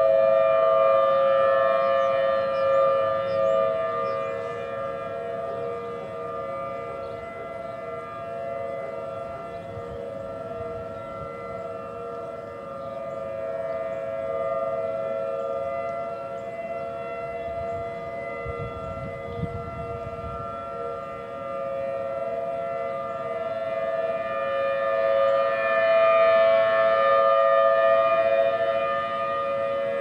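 Several outdoor warning sirens sounding together at full speed in a test, chiefly a Federal Signal Model 5 and a Federal Signal Thunderbolt. Their steady pitches blend into one chord that swells and fades, loudest near the start and again near the end.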